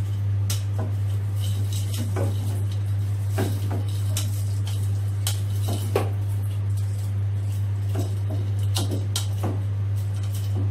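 Metal skimmer clinking and scraping against a stainless-steel colander as pieces of fried pork are pushed out into a pot of boiling liquid: many irregular metallic clinks. A steady low hum runs underneath.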